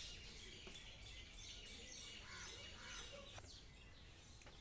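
Near silence: faint room tone with faint chirping of birds in the background.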